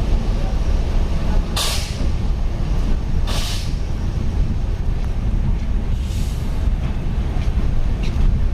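Train rumbling steadily, with two short, sharp hisses of released air about a second and a half apart, like air brakes, and a fainter hiss later.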